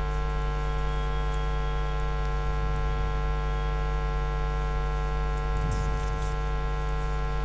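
Steady electrical mains hum, a loud buzz made of many even overtones that does not change.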